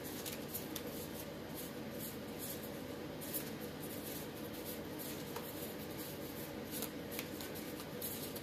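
An oracle card deck being shuffled by hand: soft, irregular swishes and flicks of card stock sliding against card stock, over a faint steady hum.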